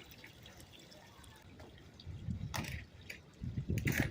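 Screen Tight trim cap being pried off its track by hand: two sharp snapping clicks in the second half, with low bumps of handling around them.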